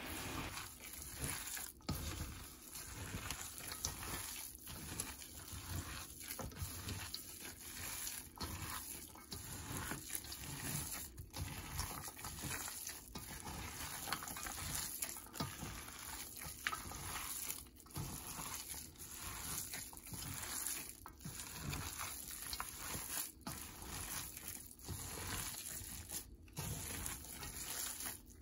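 Wet squishing of a minced pork mixture kneaded by a plastic-gloved hand in a stainless steel bowl, in uneven repeated squeezes.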